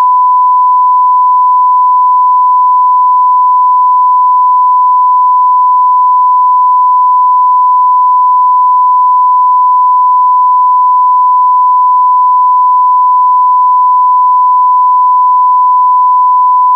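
A continuous 1 kHz sine-wave test tone, one steady pure pitch at constant loudness.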